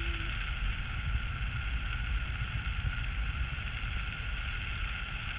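Steady wind rushing over an action camera's microphone in paraglider flight: a constant low rumble with an even hiss above it.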